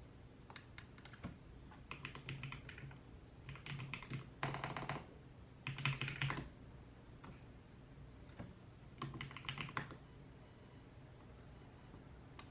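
Typing on a computer keyboard in short bursts of rapid key clicks, with pauses between them; the busiest, loudest runs come around the middle.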